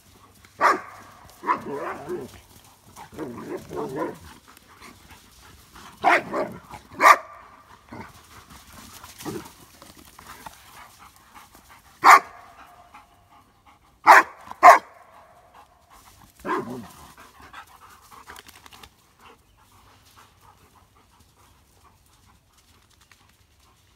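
Doberman and Dogo Argentino dogs barking and growling as they play-fight. Short, loud barks come at irregular intervals, with a cluster of rougher growling sounds in the first few seconds. The barking dies away after about seventeen seconds.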